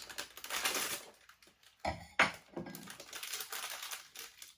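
Funko Mystery Minis blind box being torn open by hand: cardboard and plastic packaging crinkling and rustling, with a couple of sharp snaps about two seconds in.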